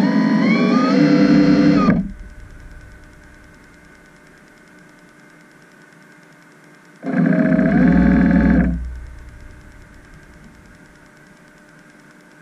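Underwater ROV thruster motors whining in two short bursts, one at the start and one about seven seconds in, each rising in pitch as the motors spin up. A steady electrical hum runs between the bursts.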